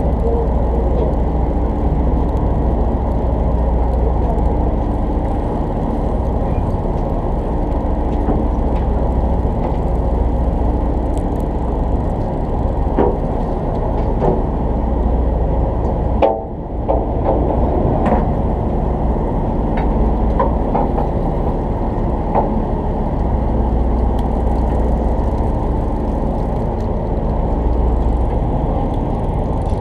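Party boat's engine running with a steady low rumble, dipping briefly just past halfway, with a few faint knocks on board.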